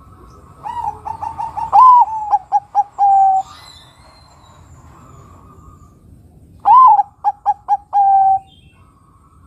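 Zebra dove (Bangkok-type perkutut) singing two cooing phrases: each has a loud swooping note, then a quick run of short staccato coos, then a held final coo. The first phrase starts about half a second in with softer lead-in notes, and the second comes near the end.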